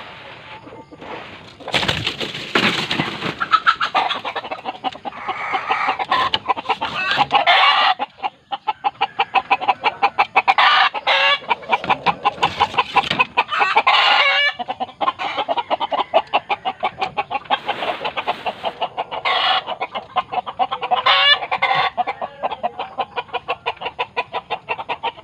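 Hen clucking in a long, rapid run of repeated clucks, with a few louder calls among them. It is typical of a broody hen sitting on a clutch of eggs.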